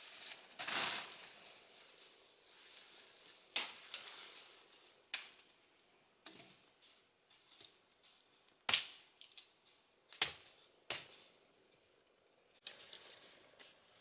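Machete hacking through forest undergrowth: about nine sharp chops at irregular gaps of one to two seconds, with leaves and branches rustling between them.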